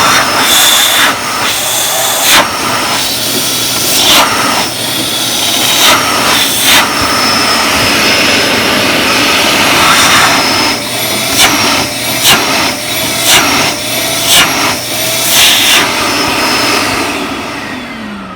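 Kärcher wet-and-dry vacuum cleaner running at full power: a loud, steady rush, with sharp knocks every half second or so through the middle stretch. Near the end the motor winds down with a falling pitch.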